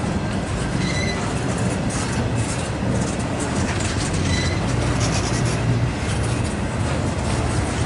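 Empty double-stack intermodal well cars of a freight train rolling past on the main line: a steady rumble of steel wheels on rail, with a few short, high wheel squeaks.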